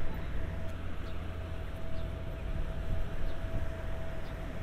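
Steady low motor rumble with a faint constant whine above it.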